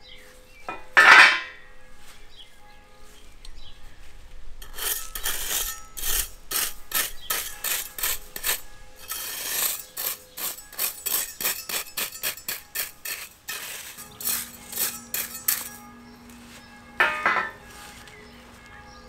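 Fine gravel poured from a small metal scoop onto a gravel bed, a hissing pour about a second in. Then many quick scraping strokes as it is raked and spread with a flat hand scraper, and a second pour near the end.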